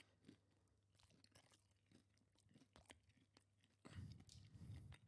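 Faint close-up chewing of fried chicken, soft mouth ticks and smacks, louder for about a second near the end.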